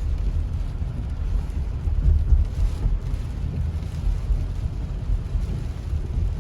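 Car driving on a highway in heavy rain: a steady low rumble of road and car noise under the hiss of rain and spray.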